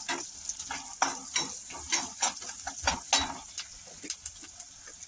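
Chopped onion, curry leaves and green chillies sizzling in hot oil in a metal kadhai while a steel ladle stirs them, scraping and knocking against the pan. The ladle strokes come thick and fast for the first three seconds or so, then grow fewer and lighter.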